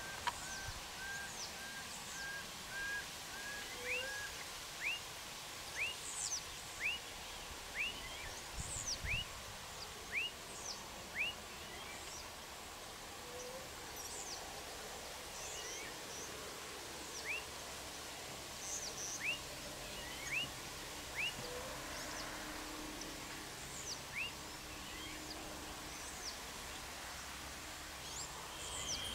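Birds calling: a quick row of short level whistles in the first few seconds, then a string of short rising whistled notes about one a second, with thin high chirps above, over a steady hum of insects.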